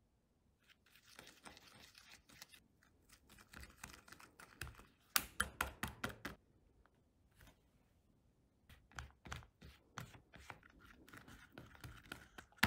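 A thin clear plastic kit tray being handled by hands: crinkling plastic and a run of sharp clicks and taps, in clusters with short gaps between. The loudest clicks come about five seconds in and again right at the end.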